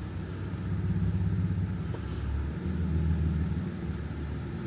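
Jeep Gladiator Rubicon running, a steady low engine and road drone.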